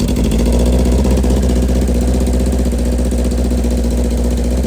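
Kawasaki ZX10R inline-four engine idling steadily.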